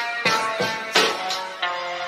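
Music with sharp plucked or struck beats about three a second, giving way near the end to a steady held chord.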